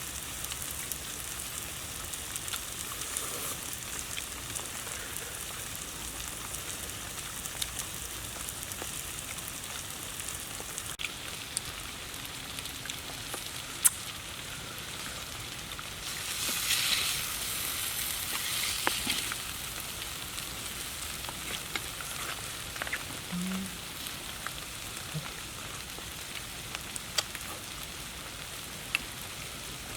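Food sizzling as it fries, a steady hiss with scattered sharp pops and crackles. A little past halfway the sizzle swells louder for about three seconds.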